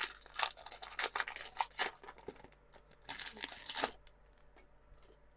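Foil wrapper of a Pokémon TCG booster pack crinkling and being torn open. There is a run of crackles, then a louder tearing rip about three seconds in, followed by a few faint ticks.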